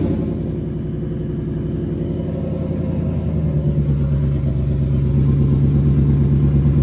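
Whipple-supercharged Ford F-150 V8, freshly installed, idling steadily just after its first start while its oil pressure builds. Its note firms up and grows a little louder about halfway through.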